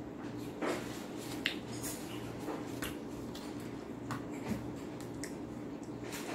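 Eating rice by hand from a bowl: soft scattered clicks and smacks of chewing and of fingers working the food, about half a dozen in all, over a steady low hum.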